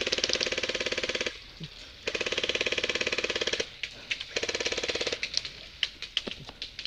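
Airsoft guns firing on full auto: three long bursts of rapid clicking shots, then a scatter of single shots near the end.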